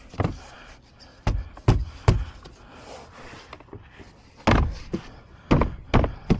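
A series of about nine sharp thumps in irregular groups, three about a second in and three more near the end: a car door's trim panel being knocked into place by hand.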